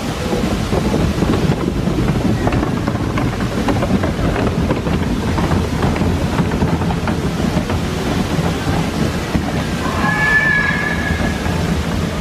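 Steady rushing of waterfalls, mixed with uneven wind buffeting on the microphone. A brief high, warbling tone sounds about ten seconds in.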